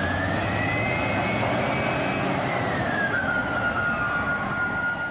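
Jet flyby whoosh used as a transition effect: a steady rushing noise with a whine that rises in pitch, then falls and levels off, cutting off abruptly just after the end.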